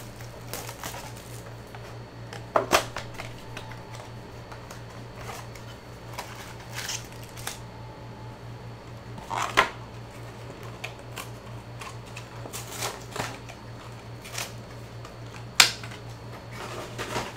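A cardboard Panini Select blaster box being opened and its stack of foil-wrapped trading card packs pulled out and set down: scattered rustles, crinkles and sharp clicks, the loudest about two and a half, nine and a half and fifteen and a half seconds in.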